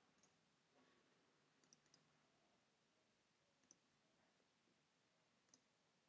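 Faint computer mouse clicks in quick pairs and threes, about every two seconds.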